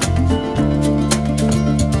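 Background music: an instrumental track with held bass notes and a steady percussive beat.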